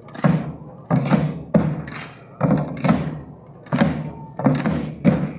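Marching drum beaten in a slow, steady procession rhythm, about one to two strokes a second, each stroke sharp with a short ringing tail.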